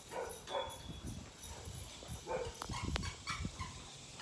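Pet dogs making quiet sounds, with a sharp click about three seconds in.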